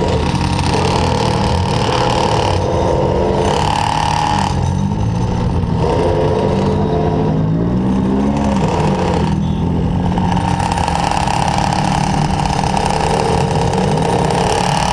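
Small gas engine of a stand-up Go-Ped-style scooter running under way, its pitch wavering with the throttle, with a quick rev up and back down about eight seconds in.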